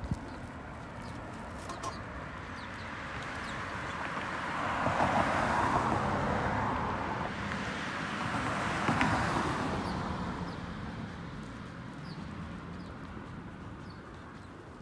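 Cars passing on a multi-lane road, their tyre and engine noise swelling and fading twice, loudest about five seconds in and again about nine seconds in.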